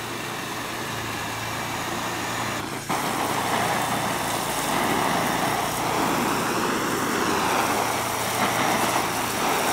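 Garden hose spraying a hard stream of water onto a sleeping bag's shell fabric, a steady hiss with a brief break about three seconds in.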